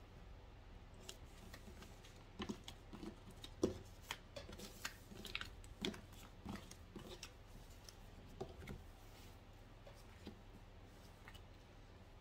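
Tarot cards being gathered up from a table and laid down again: faint, scattered soft clicks and rustles of card stock.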